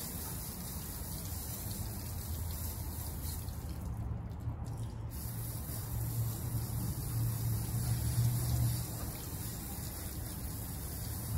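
Water running and splashing over a steady low rumble, which grows louder about six seconds in and eases off near nine seconds.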